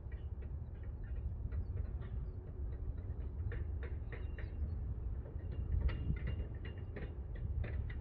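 Sea water washing against a rocky shore: many small, irregular clicks and splashes over a steady low rumble.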